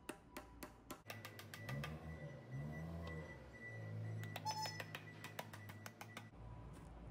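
Hammer tapping a screwdriver wedged into the oil pan seam of a 1.2 L three-cylinder Mitsubishi Mirage engine to break the pan's sealant: a quick run of light taps, about four a second at first, then more in short runs. Faint music plays from about a second in and cuts off near the end.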